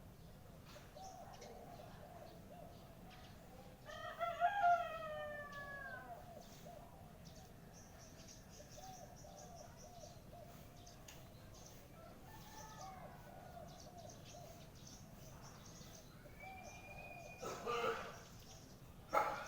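A rooster crows about four seconds in, one long call falling in pitch, and a fainter crow follows around twelve seconds. Under it runs a steady low warbling, and a few sharp knocks come near the end.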